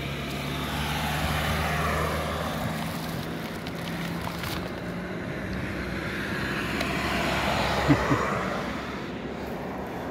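Passing motor traffic. A vehicle's engine hum swells over the first two seconds and fades, then a second vehicle swells to a peak later on, with two short knocks just before that peak.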